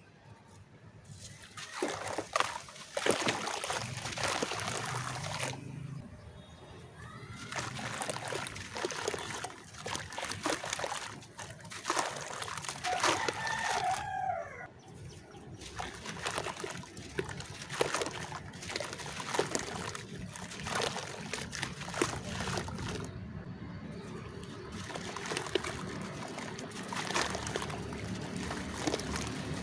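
Chunks of dry red clay dirt crumbling and splashing in water, with irregular crackling and trickling in uneven bursts. A rooster crows in the background about midway through.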